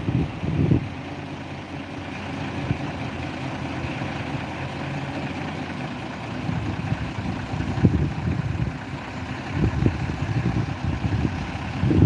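Heavy diesel truck engine idling, with uneven low rumbling surges.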